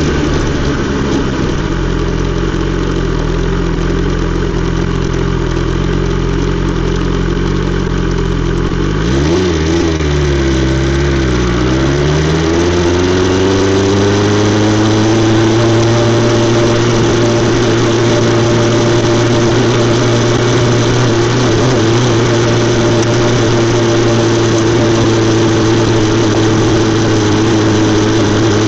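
BMW S 1000 XR's inline-four engine running through an Akrapovič exhaust at steady revs. About ten seconds in, the revs drop briefly and climb back, then hold steady at a slightly higher pitch.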